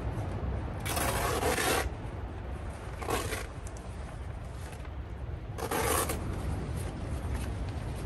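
Three scraping, rubbing strokes as material is dragged and handled on a rooftop tent: the first lasts about a second, the next two are shorter, a couple of seconds apart. A steady low rumble lies underneath.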